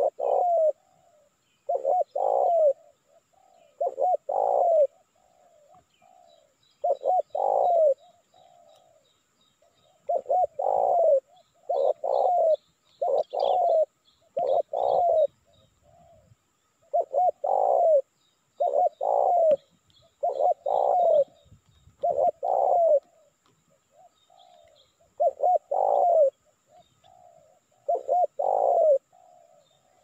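Spotted dove cooing: a run of short, low coos in groups of two or three, repeated every second or two with a few brief pauses. Smaller birds chirp faintly and high in the background.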